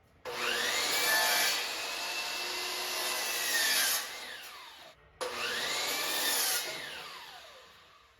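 Electric power saw cutting wood, twice: each time the motor spins up, runs through the cut, then winds down, the second run starting about five seconds in.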